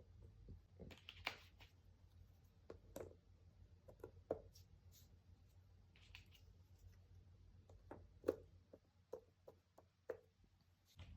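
Cardboard jigsaw puzzle pieces being handled: faint scattered clicks as pieces are tapped or set down, with a few brief scrapes as pieces slide on the table.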